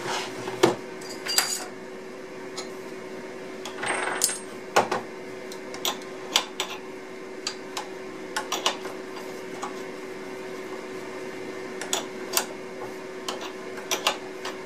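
Router collet wrenches clinking against the collet nut and spindle as the router's dovetail bit is loosened and changed for a straight bit: irregular sharp metallic clicks and clinks, with a steady hum underneath.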